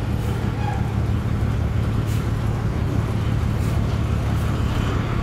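Large coach bus's diesel engine running low and steady as the bus creeps onto a ferry's loading ramp.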